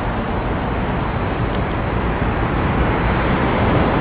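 A steady, loud rushing rumble of outdoor noise that grows slowly louder.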